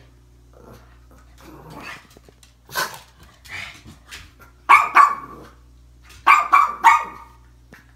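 Pug barking at a bouquet of flowers: a single bark about three seconds in, then short clusters of barks around five and seven seconds.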